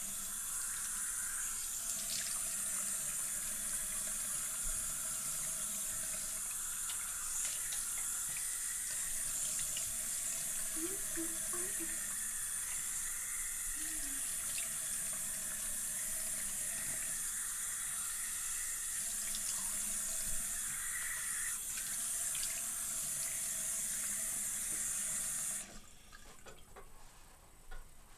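Bathroom sink faucet running steadily into the basin while a face is rinsed under it, then the tap is shut off suddenly a couple of seconds before the end.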